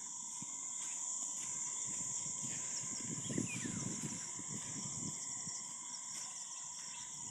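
Steady high-pitched chorus of insects trilling without a break, with irregular low rumbles underneath.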